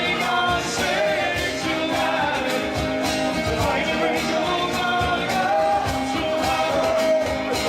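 Live rock band playing, with a steady drum beat under a wavering melody line.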